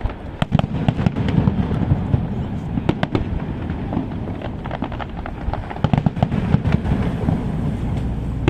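Aerial fireworks display: a continuous barrage of shell bursts, many sharp bangs in quick succession over a low rumble, heaviest about half a second in and again around six seconds in.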